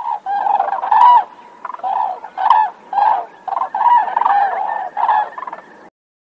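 Sandhill crane calls: a run of repeated short calls, about two a second, stopping shortly before the end.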